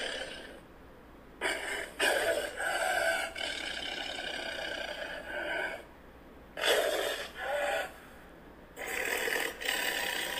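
Recorded tiger growling: a run of rough, angry growls, each a second or more long, with short pauses between them.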